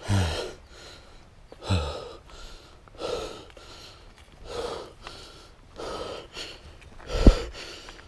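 A person breathing hard and rhythmically, about one heavy breath every second and a half, winded from walking uphill. The loudest breath comes near the end, with a low thump.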